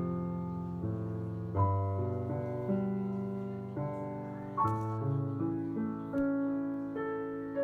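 Background piano music: slow, sustained chords struck about once a second and left to ring and fade.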